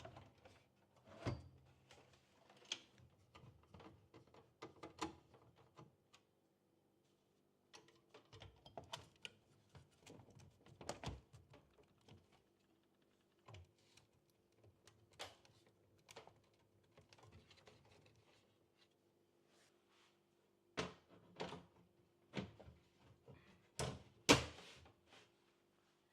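Hands assembling a desktop PC: scattered small clicks, taps and knocks as parts and hardware are handled and fitted, with a few louder knocks near the end, over a faint steady hum.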